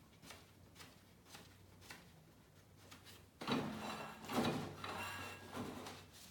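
Hands working the mower's brake linkage and its adjustment, with light metallic clicks. About three and a half seconds in comes a louder stretch of clattering and scraping, which dies away near the end.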